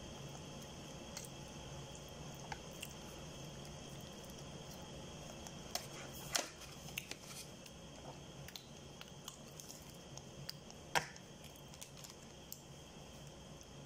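Faint eating sounds: chewing and the handling of leaf-wrapped rice and a foam food tray, with scattered small clicks and taps, the sharpest about six and a half and eleven seconds in.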